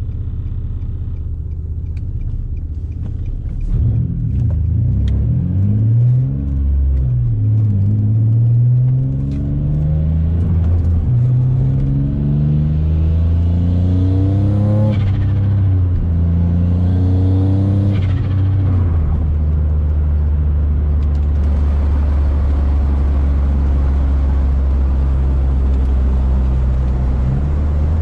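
Single-turbo Nissan G35's 3.5-litre VQ35 V6, heard from inside the cabin. It runs steadily, then accelerates through several gears from about 4 seconds in, its pitch rising with each pull and dropping at each shift. From about two-thirds of the way through it settles into a steady cruise.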